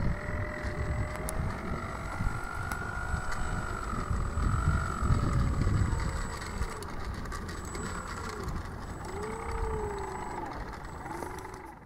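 Electric motor and propeller of a Parkzone Xtra 300 RC plane taxiing on the ground, a whine that drifts in pitch and then rises and falls in several short throttle blips near the end. Wind rumble on the microphone runs underneath.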